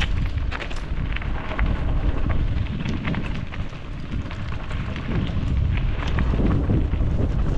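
Wind rumbling hard on a GoPro's microphone while a mountain bike rides a trail, with many scattered clicks and rattles from the tyres and the bike.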